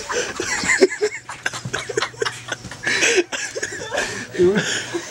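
People stifling laughter: breathy snickers and giggles in short, broken bursts.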